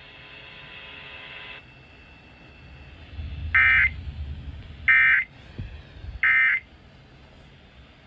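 Three short, loud electronic data bursts about a second apart from a weather radio's speaker: the SAME end-of-message tones that close a NOAA Weather Radio Emergency Alert System broadcast. A low rumble of handling runs under them.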